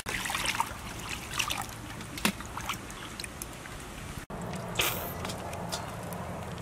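Water trickling and splashing in a metal basin as hands rub and squeeze a slippery piece of raw cow offal under a running tap, with small splashes and drips throughout and a louder splash just before the end.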